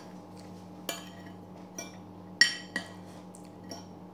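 Metal spoon and fork clinking and scraping against a plate while eating, a handful of short sharp clinks with the loudest about two and a half seconds in, over a faint steady hum.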